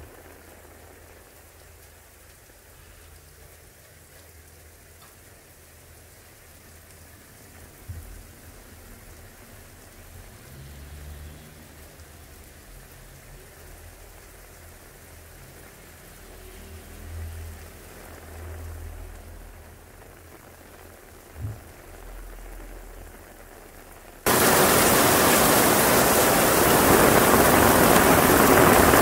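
Quiet room tone with faint low rumbles and a couple of soft thumps, then, abruptly about 24 seconds in, loud heavy rain pouring down outdoors.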